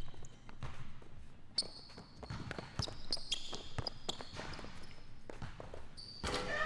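Basketball dribbled on a hardwood gym floor, a run of bounces, with a few high sneaker squeaks as the players cut; a voice cuts in near the end.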